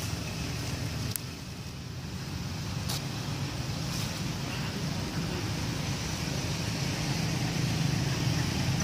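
Steady low rumbling background noise with a hiss over it, growing slightly louder, and a few faint clicks in the first half.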